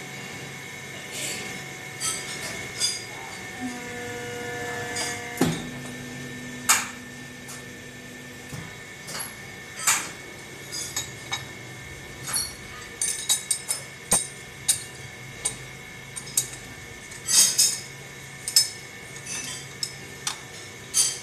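Steel plate clinking and knocking against a press brake's die and back gauge as it is handled and repositioned, with many sharp metallic taps, bunched near the middle and again toward the end, over a steady machine hum. A short rising run of tones leads into one heavier knock about five seconds in.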